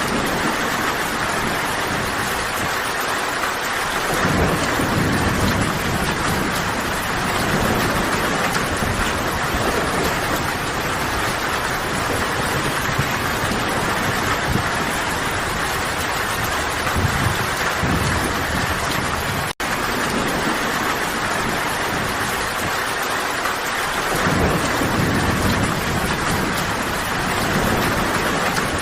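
Steady heavy rain, with low rolls of thunder swelling in twice, a few seconds in and again near the end. The sound cuts out for a split second about two-thirds of the way through.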